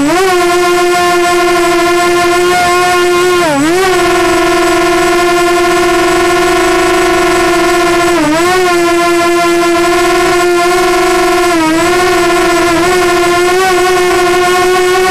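Walkera Runner 250 Advance quadcopter's brushless motors and propellers heard from its onboard camera: a loud, steady high whine that dips briefly in pitch and swings back up about four times as the motor speed drops and recovers.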